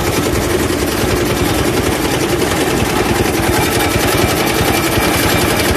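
Motor-driven sugarcane juice machine running steadily, its gears and steel rollers turning with a rapid, even mechanical beat.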